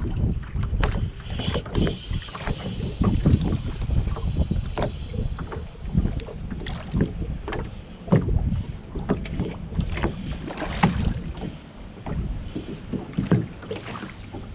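Wind buffeting the microphone over small waves slapping against a bass boat's hull, with scattered short knocks throughout.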